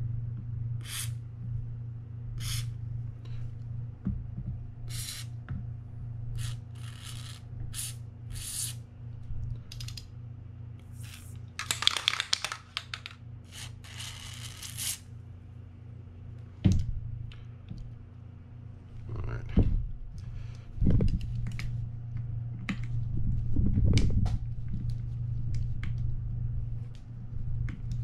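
Aerosol spray hissing through a straw nozzle onto the screws of a fishing reel's side plate: many short puffs, then two longer bursts about halfway through. In the second half come several knocks from handling the metal reel and a screwdriver, over a steady low hum.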